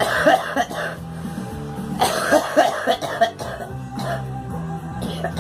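A girl coughing in fits, a few quick coughs at the start and a longer run of coughs about two seconds in, over background music with steady low notes.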